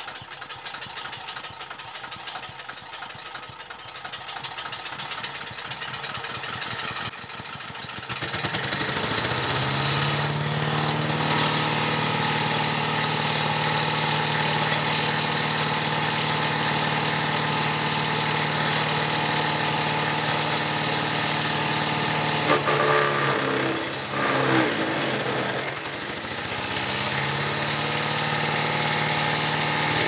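Predator 212cc single-cylinder engine on a chipper shredder running rough and uneven at low speed, then speeding up about eight seconds in and running steadily at speed. About two-thirds of the way through its speed dips and wavers for a few seconds, then it steadies again.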